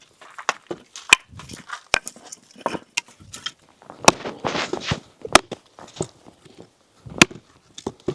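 Irregular sharp knocks and clicks, several of them loud, with brief rustling noise between them.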